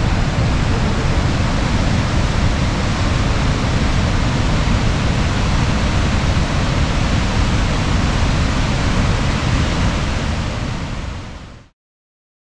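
Steady rush of the water pouring over Niagara Falls, fading out quickly near the end.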